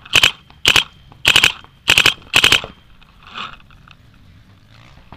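Dye DM12 electronic paintball marker firing five quick strings of shots, each a rapid run of pops, over the first two and a half seconds, then stopping.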